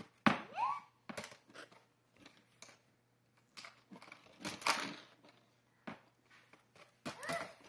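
Metal hand tools, screwdrivers and pliers, clinking and knocking against each other and a plastic storage bin as a toddler rummages through it, in short irregular clatters. There is a brief small vocal sound from the child just after the start and again near the end.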